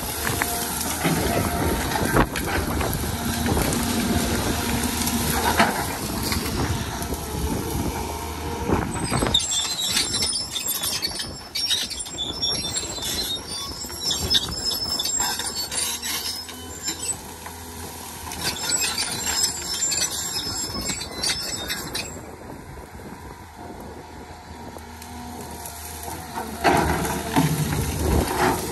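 Cat 320 tracked excavator clearing brush: its diesel engine runs under load with a steady low hum. From about ten seconds in there is a long spell of high scratchy crackling and squealing, and the engine eases off for a few seconds near the end before loading up again.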